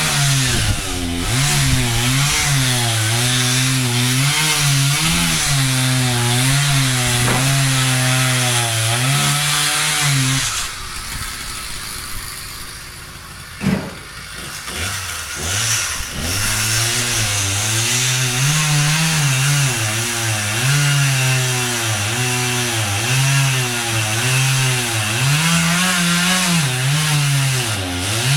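Chainsaw engine running at high revs under load, its pitch wavering up and down as it cuts wood. About ten seconds in it drops away for several seconds, with one sharp knock, then picks back up to cutting speed.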